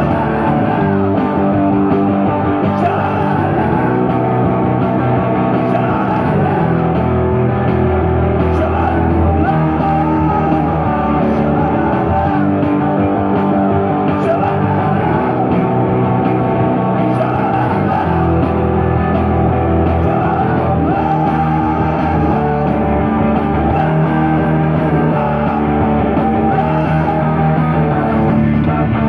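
Live rock band playing: electric guitars, electric bass and a drum kit, with a man singing into a microphone.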